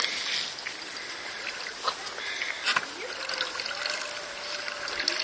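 Small water splashes and lapping around a moored boat, with a couple of light knocks. From about three seconds in, the faint, slightly rising whine of a radio-controlled model boat's electric motor.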